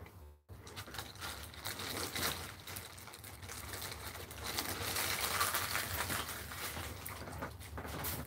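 A clear plastic zip bag being crinkled and rustled in the hands: a continuous crackle of fine clicks, loudest about five to six seconds in. The sound drops out for a moment at the very start.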